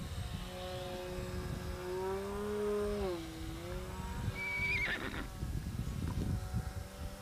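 Micro RC pattern plane's electric motor and propeller whining in flight, its pitch creeping up and then dropping about three seconds in. Just after the middle, a short high wavering cry slides down in pitch, over a low wind rumble on the microphone.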